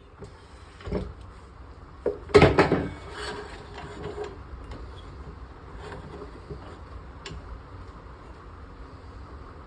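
A knock, then a short burst of clattering knocks about two and a half seconds in, over a steady low hum.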